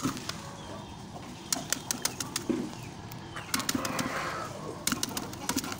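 Sharp clicks and taps in small clusters, about a second and a half in, near four seconds and again near five seconds, as eggs are handled against a metal tub nest.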